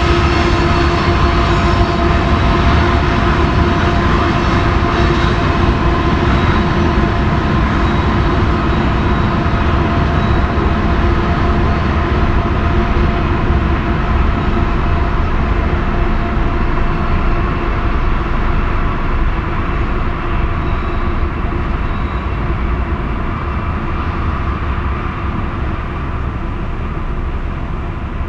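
Steady whine of a small quadcopter drone's spinning propellers, a few high tones held level over a low rumble, easing off slightly near the end.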